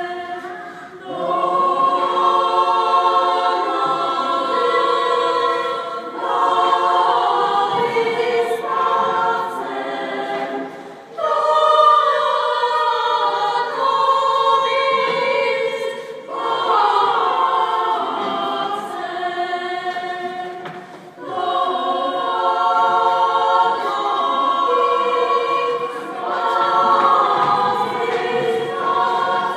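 Small choir of female voices singing together, held notes in phrases of about five seconds with short breaks between them.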